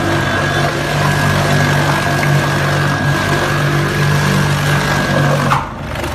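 Meat bowl cutter running, its rotating bowl and chopping knives working meat into a fine paste with a steady hum and a high whine. About five and a half seconds in the whine cuts off and the sound drops suddenly to a quieter, lower hum.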